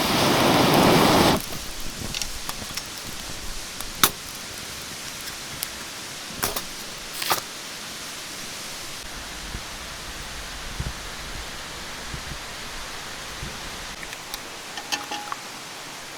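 Steady rush of a mountain stream. A loud, noisy rustle stops about a second and a half in, and sharp clicks and knocks come here and there over the water.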